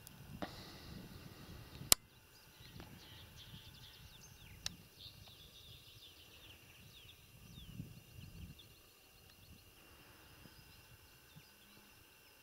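Quiet open-field ambience with many faint, short high bird chirps, mostly in the first half. A single sharp click about two seconds in is the loudest sound, and a smaller click comes near five seconds.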